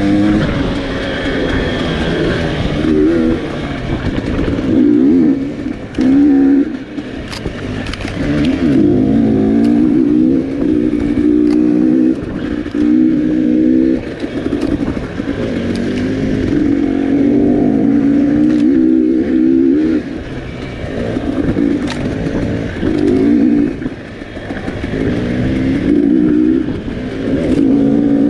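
Dirt bike engine under a rider's throttle on a trail, its pitch rising and falling every few seconds as it revs up and eases off, with a few short sharp ticks.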